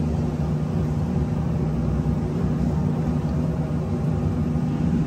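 Steady low machine hum.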